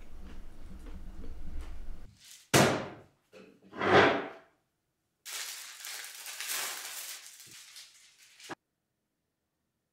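Two loud thumps about a second and a half apart, then brown paper wrapping rustling and crinkling for about three seconds as it is pulled open. It ends with a short knock and cuts off suddenly.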